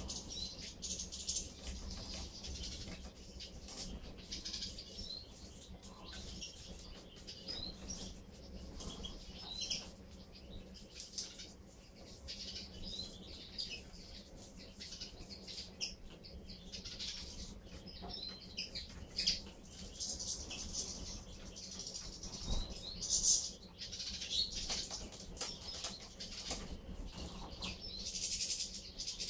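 A flock of European goldfinches twittering and chirping while feeding, with short high calls throughout that grow busier near the end, and occasional wing flutters. A low steady hum runs underneath.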